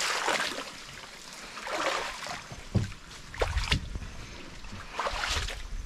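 Shallow river water splashing and sloshing around a person wading and working a net, in a few separate swishes, with a few sharp knocks in between.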